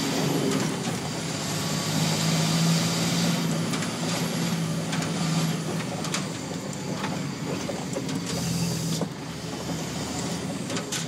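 Diesel engine of an 18-tonne 4x4 lorry running steadily under way, heard from inside the cab, with a few sharp knocks and rattles. The engine note drops off about nine seconds in.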